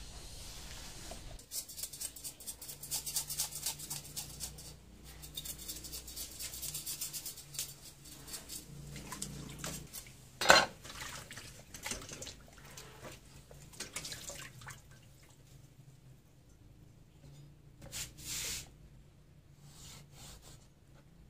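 Hands washing a whole tilapia in a stainless steel basin of water: splashing, dripping and rubbing. One sharp metallic clank about halfway through is the loudest sound.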